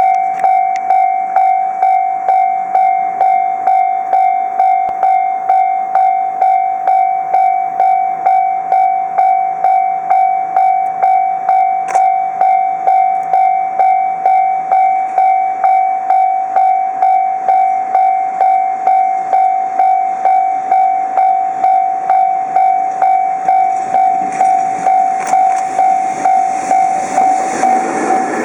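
Japanese level crossing warning bell ringing, an electronic ding repeated evenly about one and a half times a second: the crossing is closed for an approaching train. Over the last few seconds the rumble of the approaching freight train rises beneath it.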